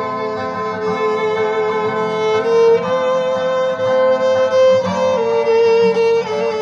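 Solo violin playing slow, long bowed notes; the melody steps up to a higher held note about halfway through and comes back down near the end.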